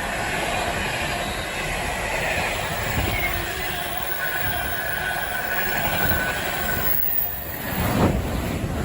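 Class 68 diesel-electric locomotive, with its Caterpillar V16 engine, running with a train, the rumble of engine and wheels steady and loud. A thin high wheel squeal runs through the middle. Near the end the sound changes abruptly, with a single thump.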